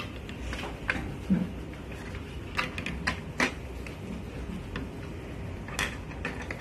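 Plastic Lego bricks clicking and clattering as they are handled and pressed together on a tabletop: a scattering of small irregular clicks over a steady low rumble.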